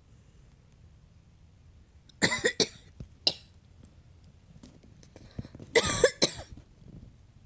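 Two loud snores about three and a half seconds apart, each a short burst on a breath.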